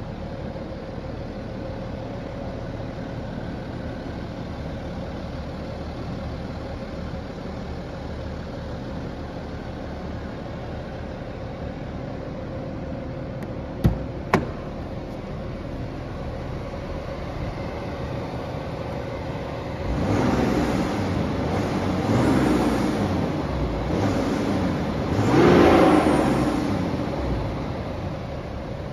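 BMW 330d's three-litre straight-six diesel, fitted with a 340i exhaust, idling steadily, then blipped four times in the last third, the last rev the loudest. Two sharp clicks come about halfway through.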